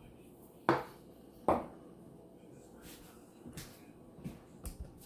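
A ceramic plate set down on a wooden table: two sharp knocks with a short ring, about a second apart, followed by a few faint taps.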